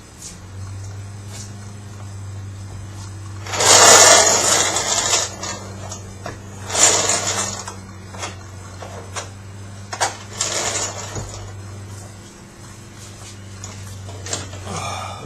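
A steady low hum with several loud rasping, scraping bursts of metal being worked, as a transfer case is pushed up and jacked into place under the truck.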